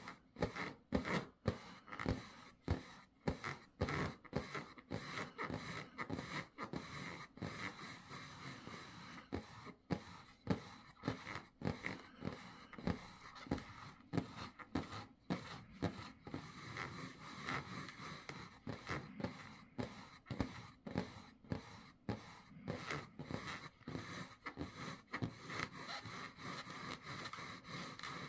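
Repeated scratching on the rubber skin of an inflated balloon, in short, uneven strokes about one or two a second; the balloon does not pop.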